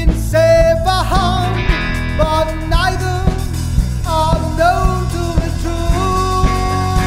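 Rock band playing: drum kit keeping a steady beat over a heavy bass, with a melody line of sliding, bent and held notes on top.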